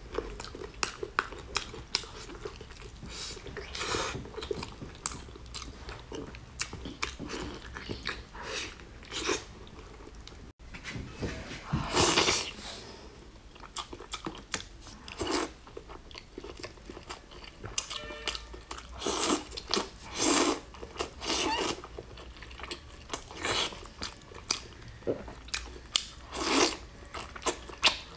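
Close-miked eating of braised, fatty meat with skin: wet chewing, smacking and biting in uneven strokes, with several louder bites, and a brief dropout about ten seconds in.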